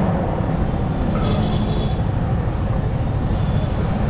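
Yamaha R15M motorcycle, a single-cylinder sportbike, running at low speed in a steady low rumble. A brief high squeal comes about a second and a half in.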